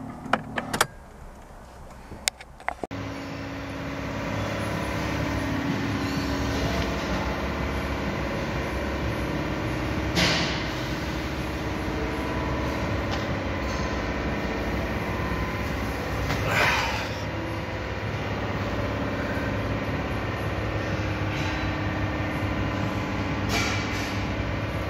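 A few sharp clicks, then from about three seconds in a steady low hum of a running vehicle engine heard from beneath the car. Three brief rushes of noise break it.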